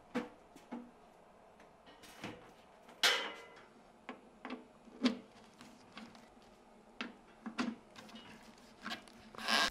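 Scattered knocks and clicks of a Telwin CleanTech 200 weld-cleaning unit being handled on a slatted steel workbench and its cable connectors being plugged into its front sockets. The loudest knock comes about three seconds in.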